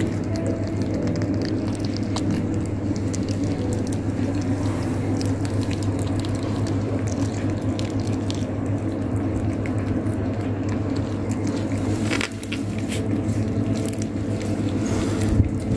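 A cat chewing a cooked chicken wing, with many small, wet clicking bites, over a steady low hum.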